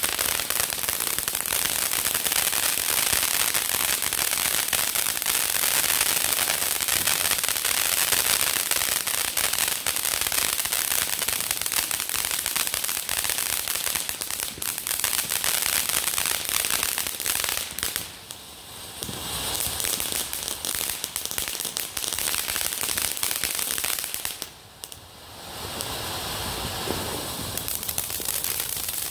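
Consumer firework ground fountains spraying sparks, with a dense crackling hiss from crackling stars. The sound drops off briefly twice, about two-thirds of the way through and again near the end, then picks up again.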